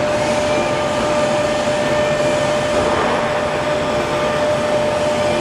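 Large CNC laser cutting machine running: a steady rushing machine noise with a constant whine held on one pitch.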